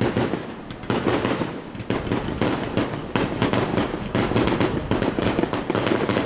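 Fireworks exploding in quick succession: sharp bursts about a second apart, then a dense run of crackling pops.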